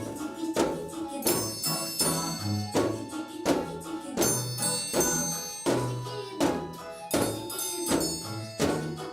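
A children's noise orchestra of simple percussion instruments, such as tambourines, playing along with music to a steady beat, with strikes about every 0.7 seconds and stretches of high ringing bell-like tones.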